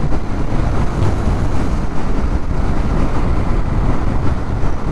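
Steady wind rush on the microphone of a Royal Enfield Interceptor motorcycle riding at highway speed, with the engine and road noise buried under it.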